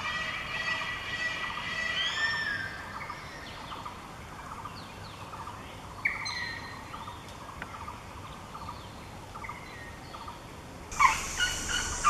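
Forest birds calling: a cluster of pitched, gliding calls in the first few seconds, then scattered chirps. Near the end a louder sound cuts in abruptly with a steady high hiss.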